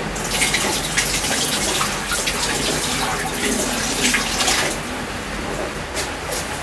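Water poured from a plastic dipper into an empty glass aquarium, splashing onto the tank's glass bottom as the tank is rinsed. The pouring is loudest for the first four and a half seconds, then eases off.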